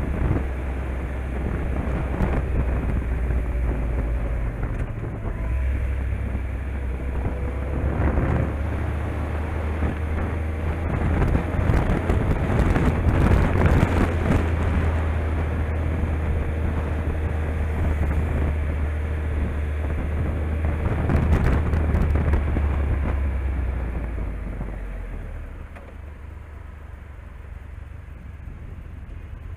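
Touring motorcycle riding through town, its engine rumbling under wind noise on the helmet microphone; near the end the sound drops as the bike slows for a red light.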